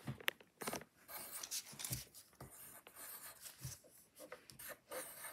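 Pencil scratching on paper in short, irregular strokes, drawing small loops and lines.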